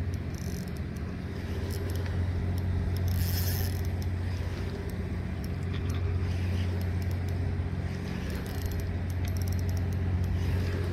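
Spinning reel being cranked steadily, winding in line against a fish that is fighting on the hook, over a constant low hum.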